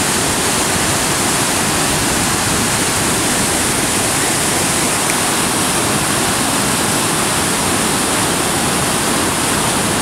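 Hog's Back Falls on the Rideau River: a heavy flow of white water pouring over the rock ledges and churning through the rapids, a loud, steady rush.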